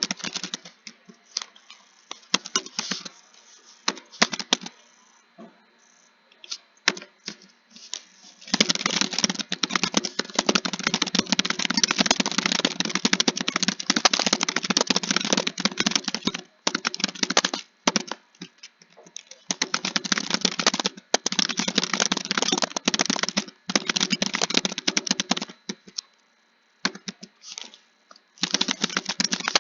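Typing on a computer keyboard: scattered keystrokes for the first several seconds, then long runs of fast, continuous typing broken by a few short pauses.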